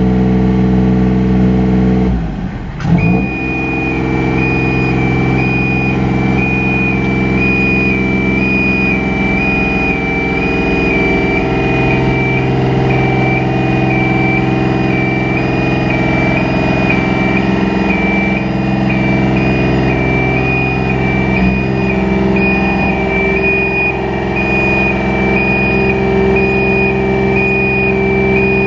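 Upright LX50 4x4 rough-terrain scissor lift, its engine running steadily while the platform lowers. The engine note changes about two seconds in, and from about three seconds in a two-tone warning alarm beeps over it, stepping between two close pitches: the lift's lowering alarm.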